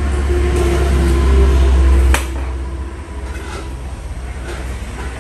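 Bowls and tea glasses set down on a table from a serving tray, a sharp knock about two seconds in and a few lighter clinks after it. A low rumble runs under the first two seconds and drops off with the knock.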